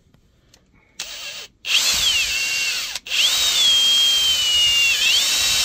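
Kobalt cordless drill drilling out a broken bolt with a 3/16-inch bit: a short burst about a second in, then the motor running at speed, its whine sagging under load. It stops for a moment around three seconds in and runs on.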